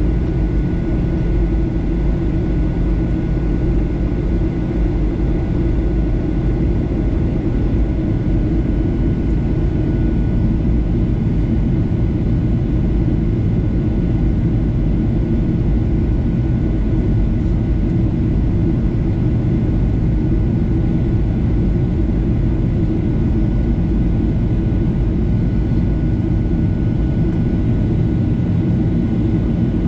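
Steady cabin noise inside a Boeing 737-800 in flight: an even low rumble of airflow and its CFM56-7B turbofan engines, with a thin steady whine above it.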